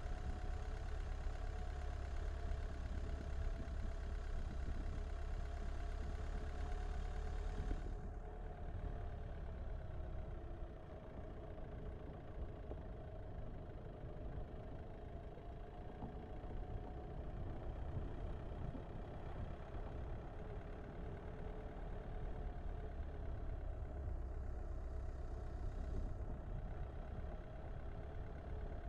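Car engine running at low speed with tyre and road noise on a dirt track: a steady low rumble with a faint whine that slowly wavers in pitch. The higher hiss drops away suddenly about eight seconds in.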